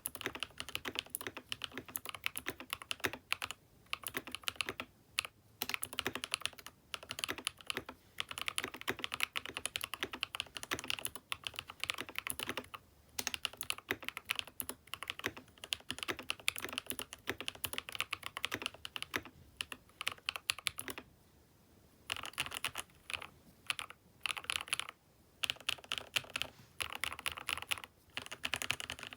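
Typing on a Keychron K6 Pro mechanical keyboard fitted with aftermarket switches: a fast, continuous run of keystrokes broken by a few short pauses, the longest about three quarters of the way through.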